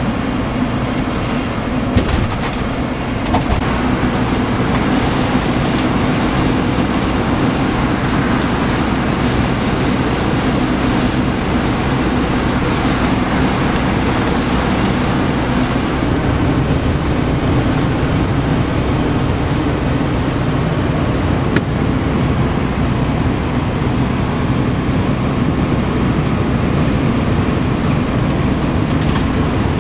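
Steady road and engine noise inside a motorhome cab at motorway speed, with a few brief clicks.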